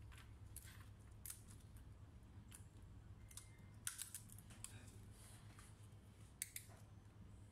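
Scattered light clicks and taps of plastic laptop parts being handled by hand on an Acer Swift 3 SF315-51G top case during a keyboard replacement, a few sharper clicks about halfway through and near the end, over a low steady hum.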